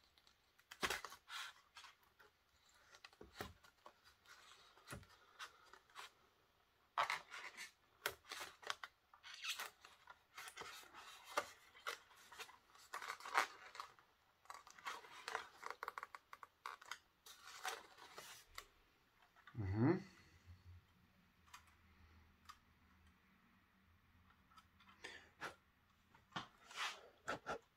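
Roco model railway coach being worked out of its white foam packaging insert by hand: faint, irregular scraping, rubbing and small clicks of foam and plastic, with one louder, briefly rising squeak about twenty seconds in.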